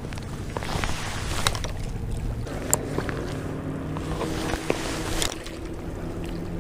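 A motor hums steadily and shifts in pitch partway through, with a few sharp clicks and taps.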